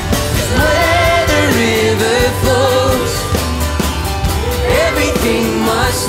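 A live worship band playing: a voice sings a long, wavering melody over drums with steady cymbal strokes, bass and guitar.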